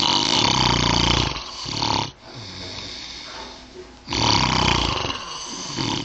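A sleeping man snoring: two loud snores about four seconds apart, each lasting about two seconds, with quieter breathing between them.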